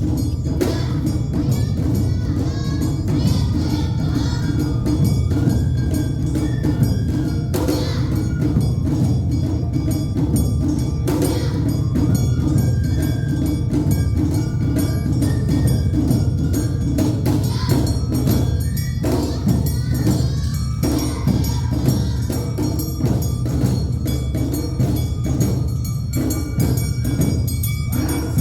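Awa Odori festival band playing live: drums and clanging metal bells keeping a steady rhythm under a pitched melody line, loud and continuous.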